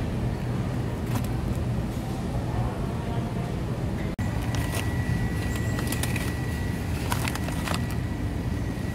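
Steady low rumble of supermarket background noise, with light clicks and rattles from a wire shopping cart and the items in it. After a break about four seconds in, a thin steady high-pitched tone joins.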